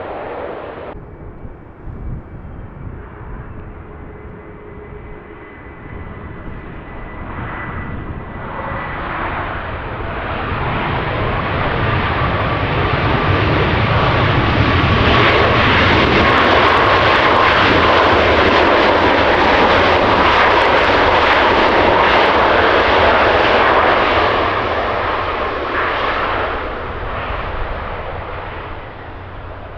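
Boeing 737 MAX 8's CFM LEAP-1B turbofan engines as the jet passes by. The noise swells to a loud, steady rush with a whine that slowly drops in pitch, then fades away.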